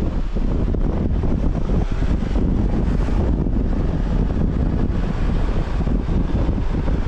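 Strong wind buffeting the microphone as a steady low rumble, with a 4WD's engine running underneath during a snatch-strap recovery on beach sand.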